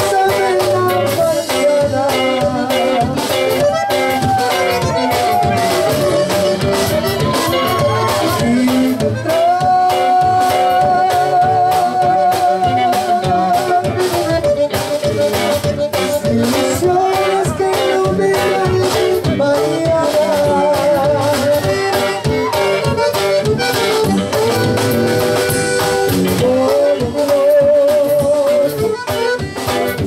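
Live conjunto band playing: a button accordion carries the melody in long, wavering held notes and quick runs over a steady drum-kit beat, electric bass and bajo sexto strumming.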